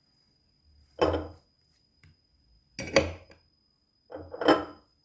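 Three short clattering knocks of hard kitchenware, about a second and a half apart, over a faint steady high whine.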